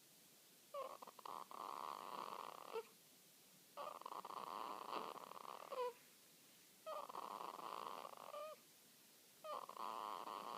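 A newborn baby, a few hours old, snoring in her sleep: four noisy breaths about three seconds apart, several ending in a short high squeak.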